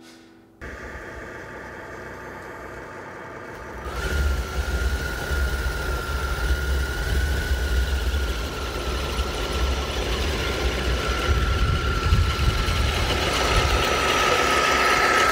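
Electric drive motors and gearing of a 20-pound 6x6 RC plow truck running under load as it pushes heavy snow: a steady high whine sets in about four seconds in over a low rumble and grows louder toward the end.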